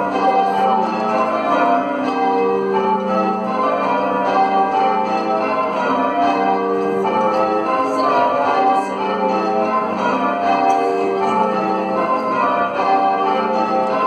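Church bells being change-rung by a band on ropes, heard from the ringing chamber: a steady, unbroken sequence of overlapping bell strikes of different pitches, each ringing on under the next.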